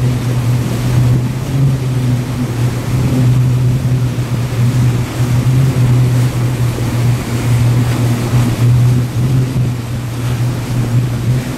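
Towing boat's engine running steadily under way, a low, even drone, over the rushing of its churning wake.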